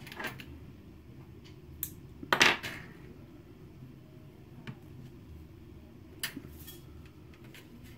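Hands handling nylon fishing line and small metal tackle on a table: faint rustling and a few small sharp clicks, the loudest about two and a half seconds in and a couple more near six and a half seconds.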